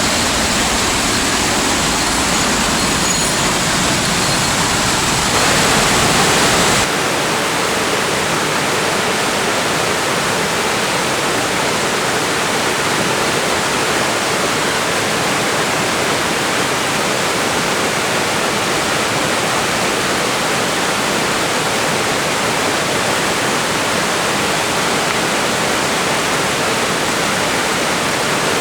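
Steady rush of a mountain waterfall, falling water with no pitch or rhythm. The sound changes abruptly about seven seconds in, losing its deepest part, then runs on evenly.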